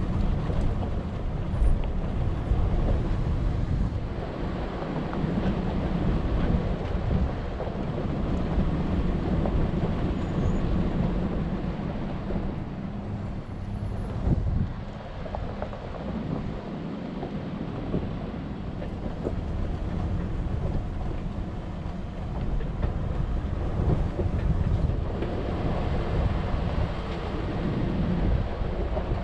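4x4 vehicle driving along a rough dirt trail: a steady rumble of engine and tyres with many small knocks and rattles, easing off briefly about halfway through.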